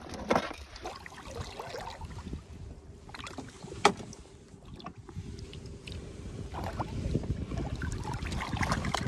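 River water sloshing and splashing around a hand and a walleye held in the current beside the boat's side to revive the fish. Two sharp knocks sound, the louder about four seconds in, and a low rumble grows louder over the last few seconds.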